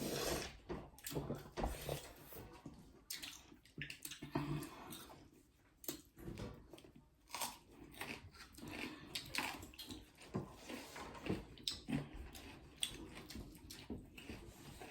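People chewing and biting food, a meal of chicken curry and buckwheat dhido, heard close up. The sounds are irregular, with many short sharp clicks.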